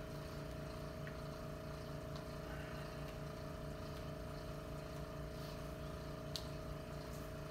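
Steady mechanical hum with a low drone and a fixed higher tone, unchanging throughout, with one faint click about six seconds in.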